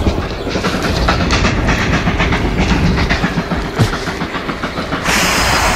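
A loud, rough rumble full of rattles and clicks right after a Ford Focus crashes into a concrete block at 120 mph, with a brighter hiss taking over near the end.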